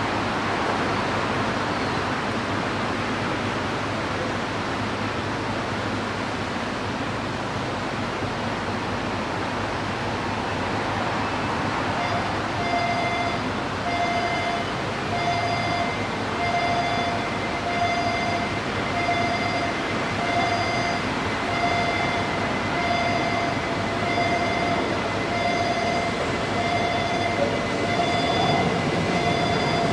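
Japanese railway level-crossing warning bell starting about 12 seconds in and dinging steadily about once a second over street traffic noise, as a Keihan Ishiyama-Sakamoto Line train approaches; the train's low running rumble grows louder near the end.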